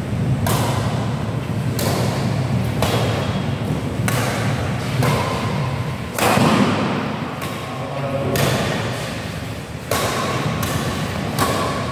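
Badminton rackets striking the shuttlecock in a fast doubles rally, about ten sharp hits roughly a second apart, echoing in a large hall.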